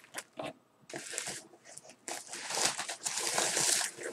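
Plastic mailer bags rustling and crinkling as they are handled. There is a short burst about a second in and a longer stretch from about two seconds until near the end.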